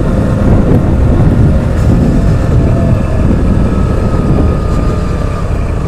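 Motorcycle riding along a street: a loud, steady rumble of engine and wind noise on the microphone, with a faint engine tone above it.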